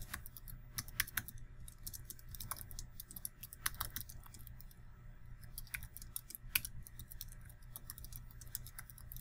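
Typing on a computer keyboard: a string of quick, irregular key clicks, over a faint low hum.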